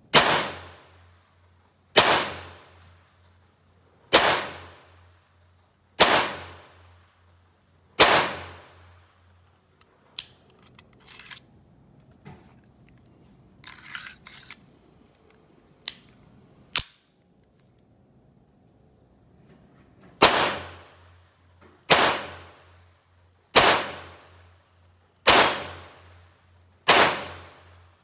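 Colt Match Target .22 LR pistol fired in two strings of five shots, about two seconds apart, each sharp report with a short echoing tail. Between the strings comes a stretch of quieter gun-handling noise ending in two sharp metallic clicks.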